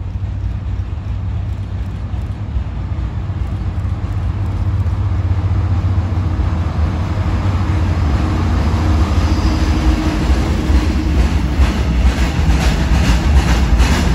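Colas Rail Freight class 70 diesel locomotive approaching and running past, its low engine drone growing steadily louder. Near the end a rapid, regular clatter of the log wagons' wheels over the rail joints takes over as the wagons pass.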